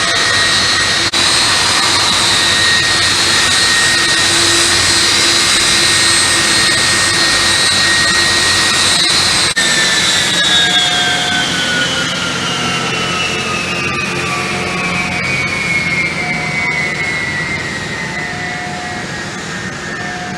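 Jet airliner's engines whining loudly with a rush of noise, then about halfway through the whine starts falling steadily in pitch and the sound slowly fades as the aircraft passes and moves away.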